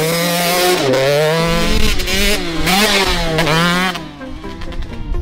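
Motocross bike engine revving hard, its pitch climbing and dropping several times. It gives way to music about four seconds in.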